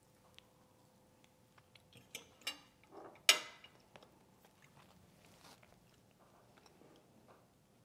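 Cutlery clicking on a plate a few times, with one sharp clink about three seconds in, then faint chewing of a mouthful of chicken penne alfredo.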